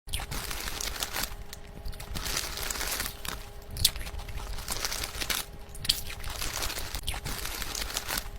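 Irregular crunching and crackling, with scattered sharp clicks over a faint steady hum.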